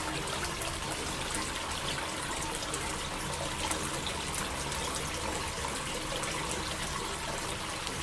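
Water pouring in thin streams from bowl to bowl of a tiered cascade fountain, a steady trickling splash into the pooled water below.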